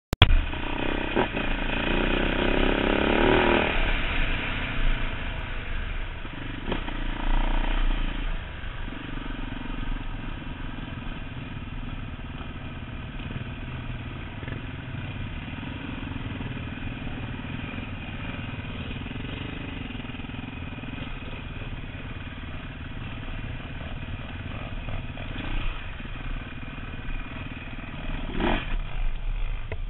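Enduro dirt bike engine heard from the rider's seat, revving up hard for the first few seconds, then running at low, fairly steady speed along a trail, with short rev-ups about seven seconds in and near the end.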